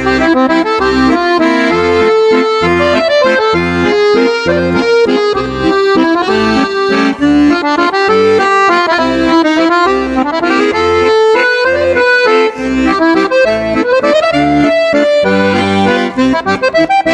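Instrumental intro music: a quick melody over a regularly repeating bass line.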